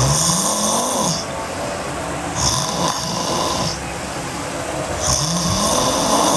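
A sleeping girl snoring hard: three rasping snores about two and a half seconds apart, each lasting about a second.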